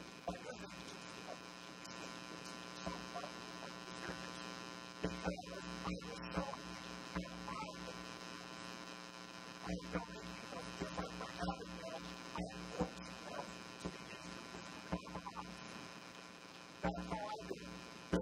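Steady electrical mains hum with a buzzy edge, broken a few times by brief, faint sounds.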